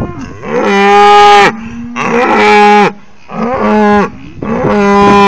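Holstein-Friesian dairy cows mooing loudly: four long calls, one after another.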